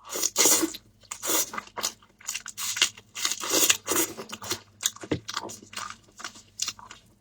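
A person chewing food with crunchy, irregular chews, about two a second.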